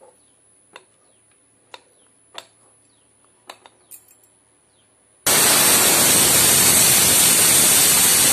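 Stovetop pressure cooker whistling: after a few faint ticks, its weight valve suddenly blows about five seconds in, a loud steady hiss of escaping steam. This is the cooker reaching full pressure, the whistle that counts off the cooking.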